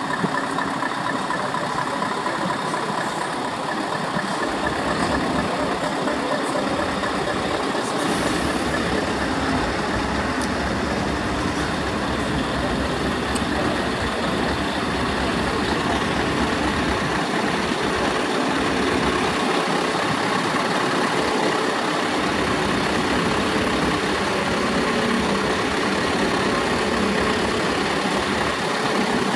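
Diesel engines of big Scania tractor units running at idle, a steady low rumble. About eight seconds in the rumble grows heavier as a truck's engine comes close.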